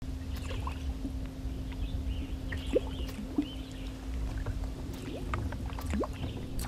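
Topwater popping lure jerked across the lake surface, chugging and splashing in short pops, loudest about three seconds in and again near the end. Under it runs a steady low hum and rumble.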